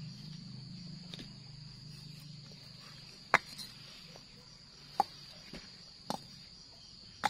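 Hollow clay bricks knocking against each other as they are set down and stacked into a small stove: four sharp clacks spread over the last few seconds. Under them is a steady high insect drone, with a low hum that fades out in the first few seconds.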